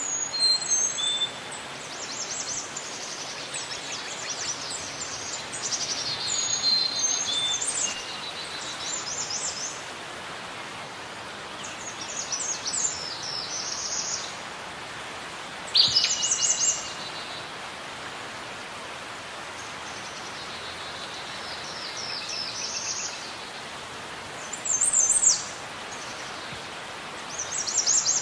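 Songbirds singing short, high, trilling phrases every few seconds over a steady background hiss.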